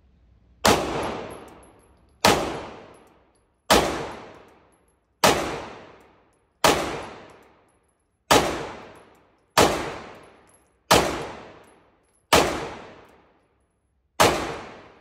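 Ten single shots from a 2011-style semi-automatic pistol, fired slowly and deliberately at about one every one and a half seconds. Each shot rings out with a long echo in the indoor range.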